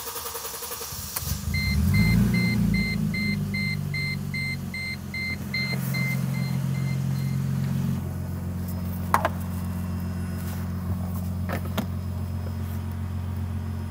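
Mercedes C230's 2.5-litre V6 turned over by the starter and catching about a second in, on its first start after the fuel pump and level sender were refitted. It runs at a raised fast idle while a dashboard warning chime beeps about twice a second, then drops to a steady idle about eight seconds in. A couple of short knocks come later.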